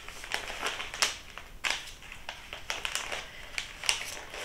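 Packaging being handled while an order is packed: irregular crinkling and rustling with scattered sharp clicks and taps.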